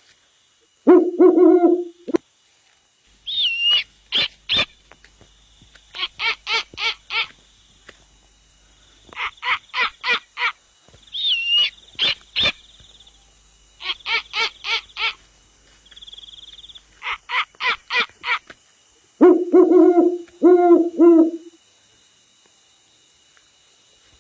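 Owl-like hooting calls. A low hoot near the start and a cluster of hoots near the end frame several runs of rapid pulsed calls, about five or six a second, with a few higher whistled notes among them.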